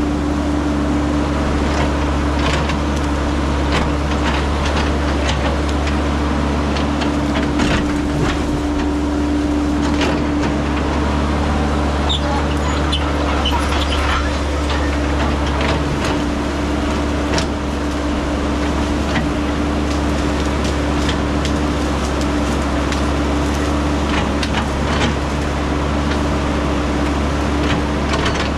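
Caterpillar 312 hydraulic excavator's diesel engine running steadily under load, with frequent sharp cracks and snaps of branches as its boom and bucket push through dense brush.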